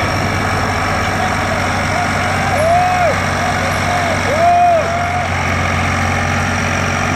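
Tractor diesel engine running steadily under the load of a heavily laden trailer. Twice a short tone glides up and back down over the engine.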